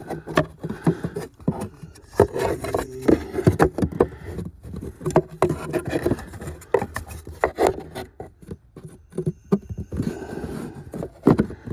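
Plastic cabin-filter access door being pushed and worked into place under the dashboard: irregular plastic knocks, clicks and scraping as it resists fitting.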